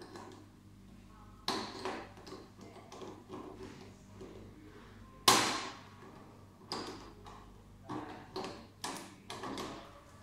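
Pliers clicking and knocking against the front connector fittings of a Soprano laser machine: a knock about a second and a half in, a sharp, loud one about five seconds in with a short ring after it, then a run of lighter taps.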